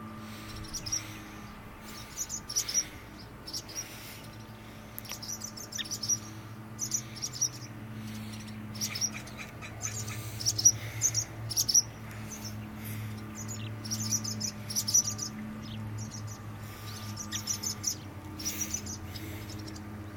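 Birds giving short, high chirps in quick clusters, repeated every second or so, over a steady low hum. These are territorial birds calling around a doorway where their nest was taken down.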